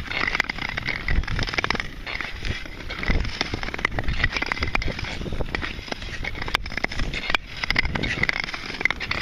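Nordic tour-skate blades gliding and scraping over natural lake ice in steady strides, with a low rumble underneath and a few sharp clicks in the second half.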